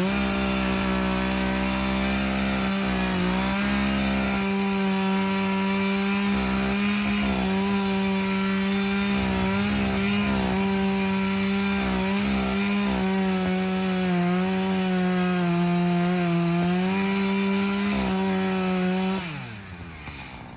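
Two-stroke chainsaw revved up and held at full throttle while cutting through wood, its pitch dipping a little under load, then let off near the end.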